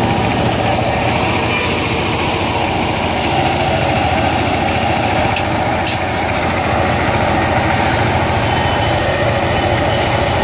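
Engine-driven paddy thresher running steadily while rice sheaves are fed into its threshing drum: a constant engine-and-drum drone.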